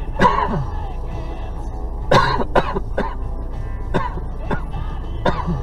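Background music with irregular sharp hits, some carrying short falling tones, over a steady low rumble.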